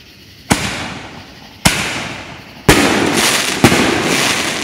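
Six-inch aerial canister firework shells going off: four sharp booms about a second apart, each trailing off in a long rolling echo. The last two come close together, with the sound staying dense and loud between them.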